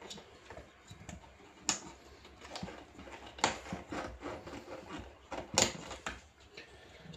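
Clicks and knocks of plastic and metal parts being handled as a dishwasher's circulation pump is taken apart, with three louder knocks about two, three and a half and five and a half seconds in.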